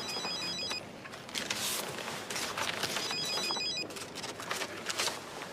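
Mobile phone ringtone: two short rings of rapid high-pitched beeping, about three seconds apart.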